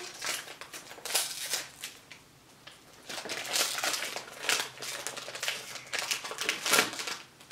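Foil blind-box bag crinkling as it is handled and opened by hand, in irregular bursts of crackling with a quieter stretch about two seconds in.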